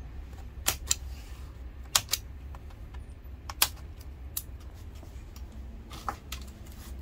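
Scattered sharp plastic clicks and snaps as a Dell Inspiron 7559 laptop keyboard is pried up from its palmrest with a plastic pry tool, its retaining clips popping loose. The clicks come one or two at a time at irregular intervals over a steady low hum.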